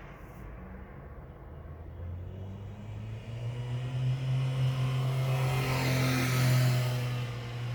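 A car driving past close by: a steady engine hum and road noise grow louder, peak near the end, then start to fade.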